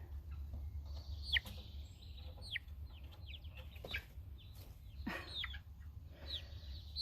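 Six-week-old Cochin chicks peeping: short, high calls that fall in pitch, scattered about a second apart, over a low steady hum.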